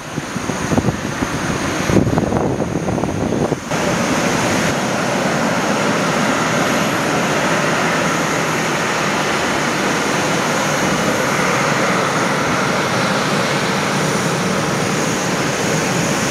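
Steady rushing hiss of an Embraer E190's turbofan engines at taxi power, with a faint high whine. Wind gusts on the microphone buffet the first few seconds, then the engine sound holds even.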